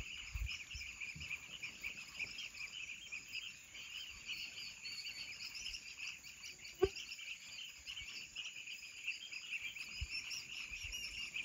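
Dense evening chorus of small animals calling: a steady, high-pitched, rapidly pulsing din. A single sharp knock comes about seven seconds in.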